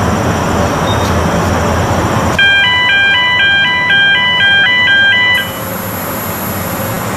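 A run of electronic beeping tones, a short melody of stepped pitches changing a few times a second, starting about two seconds in and stopping abruptly after about three seconds. Steady outdoor noise runs underneath, dropping in level as the beeping ends.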